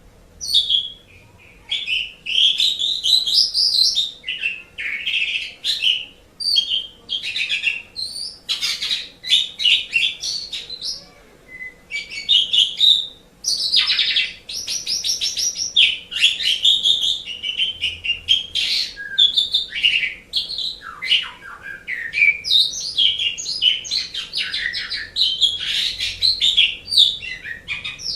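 Asian pied starling (jalak suren) singing a rapid, rambling stream of chattering and whistled phrases. It sings in short bursts with brief pauses at first, then almost without a break from about halfway through.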